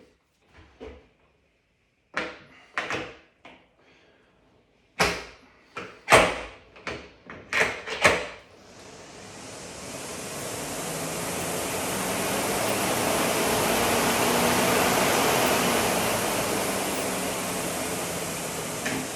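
A series of knocks and clicks, then a BikeErg's flywheel fan spinning up as it is pedalled: a steady air whoosh that builds over several seconds, peaks, and eases off a little near the end.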